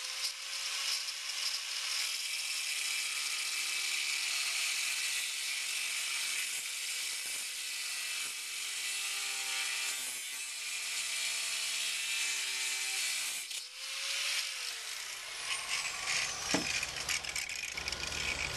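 Corded angle grinder with a cut-off wheel cutting through a metal lead screw: a steady high grinding hiss over the motor's whine. About thirteen seconds in, the cut ends, the motor briefly speeds up, then winds down.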